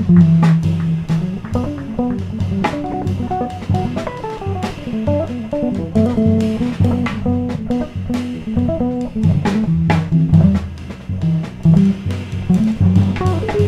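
Live jazz trio of electric guitar, electric bass and drum kit playing together: a walking bass line under a moving melodic line, with the drums keeping time on cymbals and drums.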